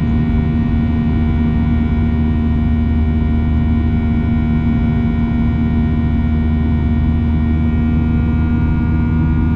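Steady cabin noise of a Boeing 737-800 in flight: a constant rushing hum of engines and airflow, with several steady tones, the strongest a low drone.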